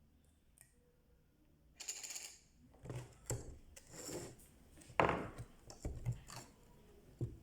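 Small hard parts and tools handled on a work surface: a short scrape, then a run of clinks and knocks, the sharpest about five seconds in.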